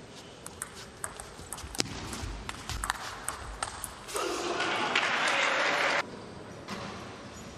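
Table tennis rally: the ball clicks sharply off paddles and table in a quick, uneven series, then about four seconds in applause breaks out as the point ends, the loudest sound, and cuts off suddenly about two seconds later.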